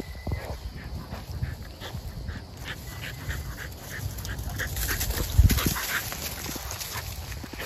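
Two pit bull-type puppies play-fighting on dry leaves: paws scuffling and rustling in the leaf litter, with short whines from the dogs and a louder low thump about five and a half seconds in.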